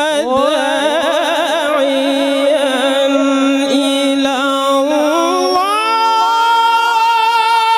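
Male qari's voice in melodic Quran recitation, drawing out one long phrase with quick wavering ornaments and then stepping up to a higher, steady held note about six seconds in.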